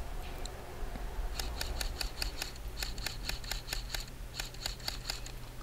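Airsoft MP5 electric gun firing a string of rapid, sharp shots, about six a second, starting about a second and a half in, with a brief pause partway through. The shots are faint.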